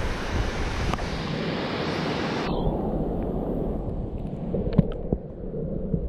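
Rushing river water with wind on the microphone. About two and a half seconds in, the sound turns suddenly dull and muffled as the microphone goes under the water, and a few faint knocks and clicks follow.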